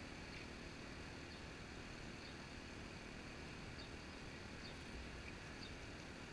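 Quiet open-air ambience: a steady low hiss and rumble, with a few faint, short, high chirps scattered through it.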